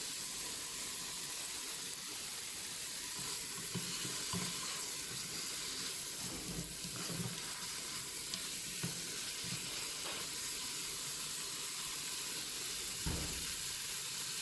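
Mutton pieces and spices sizzling steadily in an electric pressure cooker's inner pot on its stir-fry setting, with a few soft knocks.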